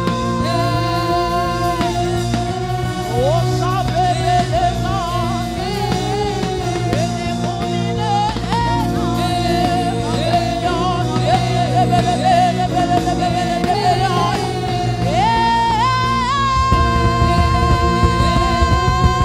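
Live gospel worship music: a woman sings lead into a microphone, joined by backing singers, over a steady band accompaniment. Near the end she rises to a long held high note.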